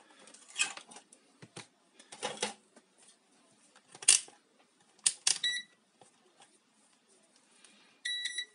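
A digital multimeter being handled and set down, giving scattered clicks and knocks, the loudest about four seconds in. Short electronic beeps come from the meter as it is switched to its test setting, a brief one about five seconds in and a longer one near the end.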